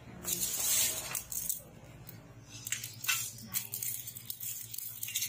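Hands stirring and sifting through dried coffee beans in a large aluminium basin: the beans rattle and rustle against each other and the metal, with a few sharp clicks of single beans being dropped.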